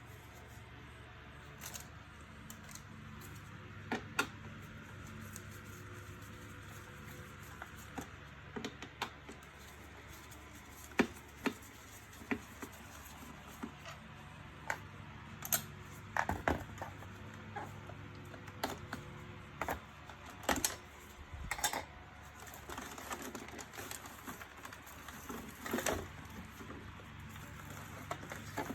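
Irregular sharp clicks and light knocks from hands and tools working on an Electrolux Pure i9 robot vacuum's housing during a battery swap, over a steady low hum.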